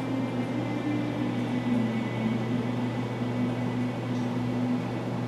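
A steady machine hum with a slightly wavering drone, like a fan motor running in the room.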